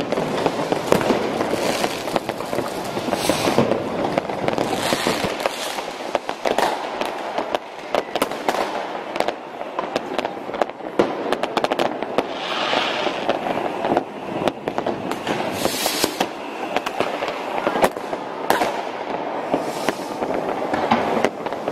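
Massed New Year's Eve street fireworks and firecrackers going off all around in a continuous barrage of overlapping bangs and crackles, with no pause.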